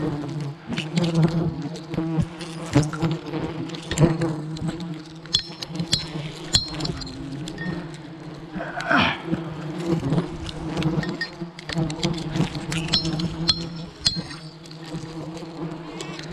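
A swarm of giant honeybees (ong khoái) buzzing in a steady low drone, with many short sharp clicks and knocks scattered through it.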